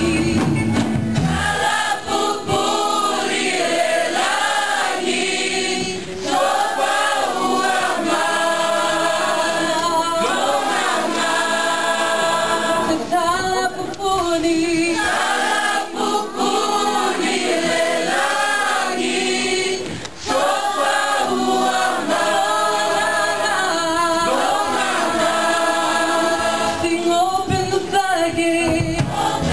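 Youth choir singing a worship song, with a young woman singing lead into a handheld microphone.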